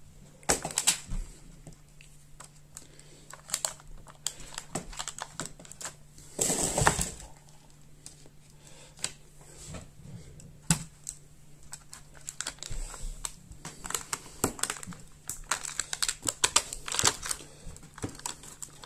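Scattered plastic clicks and taps as a Dell Latitude E7240 laptop is turned open and handled, its palm rest being worked loose from the metal chassis, with a longer scraping rustle about six and a half seconds in.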